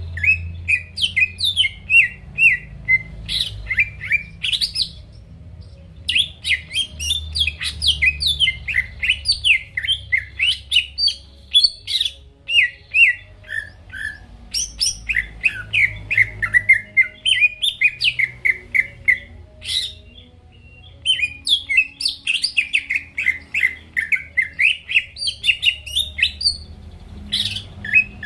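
Cucak ijo (green leafbird) in full song: rapid runs of high chirps and trills that rise and fall in pitch, broken by short pauses about five seconds in and again near twenty seconds. A faint steady low hum runs underneath.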